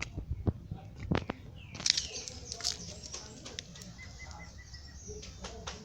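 Rustling and scattered sharp clicks, with birds chirping: a short falling chirp about two seconds in, then a quick trill of even notes about four seconds in.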